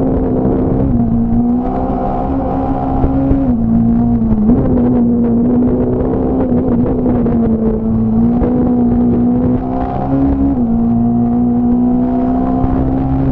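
Fiat Punto S1600 rally car's 1.6-litre four-cylinder engine running hard at high revs, heard from inside the car. Its pitch holds high and steps or dips briefly several times as gears change.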